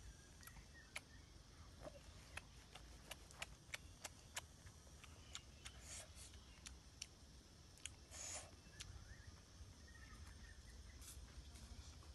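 Faint handling sounds: scattered small clicks and crackles of leaves and small objects being handled, with one louder brief rustle about eight seconds in.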